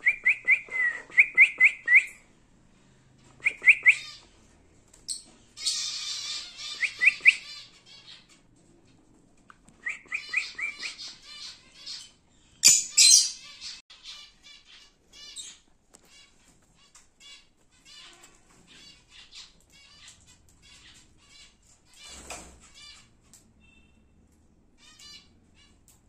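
Lovebirds chirping: quick runs of short, sharp high chirps, broken twice by louder, harsher screechy chatter, then softer scattered chirps in the second half.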